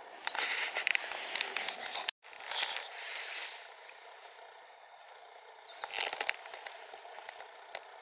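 Outdoor background hiss with bouts of rustling and crackling: brushing of leaves and handling close to the microphone, loudest in the first two seconds and again about six seconds in. The sound cuts out completely for a moment just after two seconds in.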